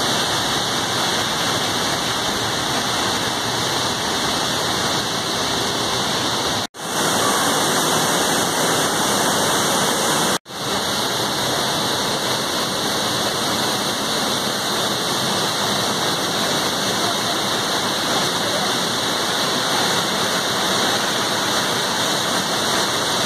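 Floodwater from Horseshoe Dam's spillway release, about 20,000 cubic feet per second, pouring over the lip and crashing onto rocks: a steady, heavy rush of falling water. It cuts out for an instant twice, about 7 and 10 seconds in.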